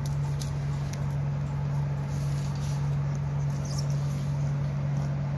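A puppy and a white long-haired cat wrestling on a hard tiled floor: light scuffling and a few faint claw clicks. A steady low hum sits underneath and is the loudest thing throughout.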